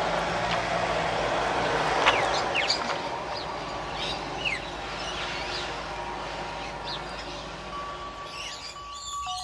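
Birds in the trees calling with short, falling chirps, several times, over a steady outdoor background hiss.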